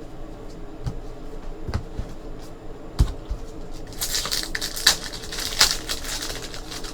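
Trading cards and packs being handled on a table: a few light taps and knocks, then about two seconds of crinkly rustling and clicking as cards are shuffled and flipped through.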